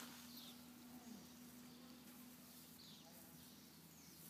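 Near silence: a faint steady hum, with two faint short high chirps, one about half a second in and one about three seconds in.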